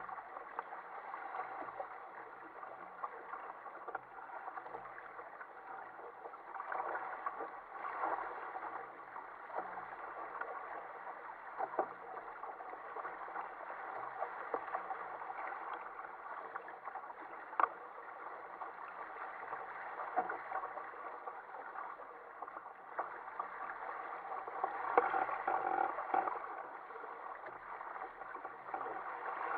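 Sea water rushing and splashing along the hull and outrigger floats of an Ocean Kayak Prowler 13 sailing through choppy water, a steady wash broken now and then by a sharp slap of a wave.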